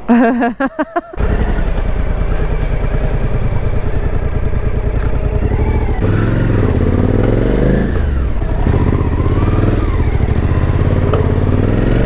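Suzuki V-Strom motorcycle engine running at low road speed, steady at first. About halfway through its pitch starts rising and falling as the bike speeds up and slows down.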